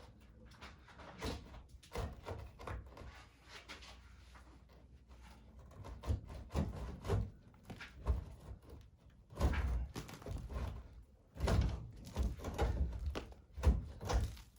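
Irregular knocks and thuds, light at first and heavier and more frequent in the second half.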